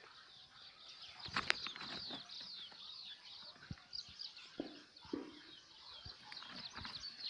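Many small birds chirping in a dense, continuous chatter, with a couple of sharp clicks about a second and a half in and two short lower sounds around the five-second mark.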